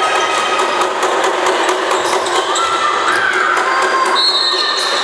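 Live basketball game in a gymnasium: steady crowd and court noise with ball bounces and short sneaker squeaks on the hardwood floor, and a brief high steady tone about four seconds in.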